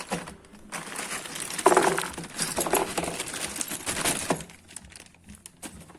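Handling of a small LPG reducer repair kit: rustling with light clinks of small parts, busiest for the first four seconds or so and quieter near the end.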